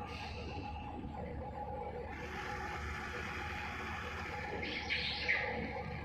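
Radio-controlled model excavator's small electric motors whining steadily, with a brief rustling clatter about five seconds in.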